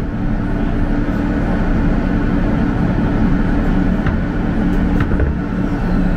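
R160 subway car moving slowly through a station, heard from inside the car: a steady low rumble and hum from the running train, with a couple of faint clicks a few seconds in.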